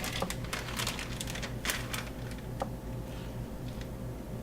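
Scattered light clicks and crinkles from handling tortilla chips and dishes while nachos are assembled, busiest in the first two seconds, over a steady low hum.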